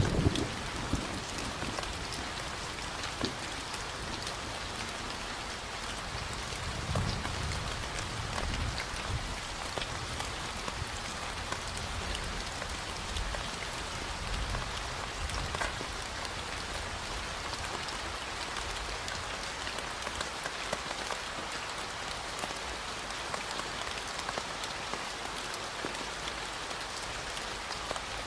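Steady rain falling on a hard surface: an even hiss of rain with scattered individual drops ticking through it.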